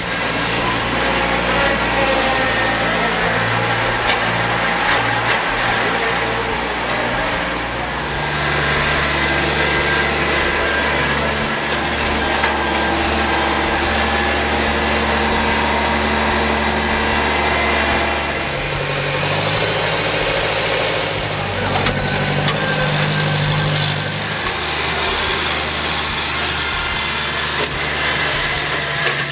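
Kubota compact tractor's diesel engine running as it works a front-end loader, its engine speed shifting up and down several times.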